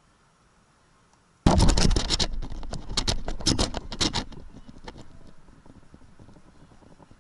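The camera and its mount are jolted: a sudden loud clatter about a second and a half in, then quick rattling clicks and scraping that die away over about three seconds.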